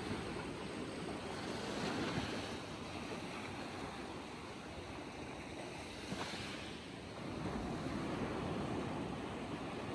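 Small sea waves breaking and washing over a low rocky reef, a continuous surf wash that swells about two seconds in and again near the end.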